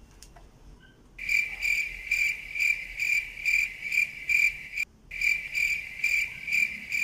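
A cricket singing close by: a loud, high trill pulsing two or three times a second, starting about a second in, breaking off briefly near five seconds, then going on again.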